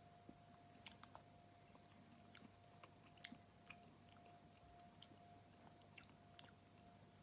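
Faint chewing of a mouthful of lentil curry: soft, scattered mouth clicks, over a faint steady hum.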